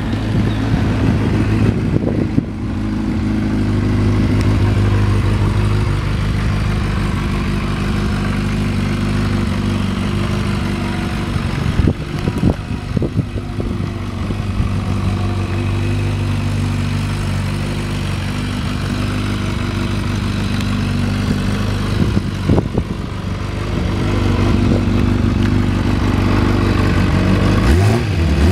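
Kawasaki ZRX400 inline-four engine idling steadily through an aftermarket carbon-fibre silencer, just after being started.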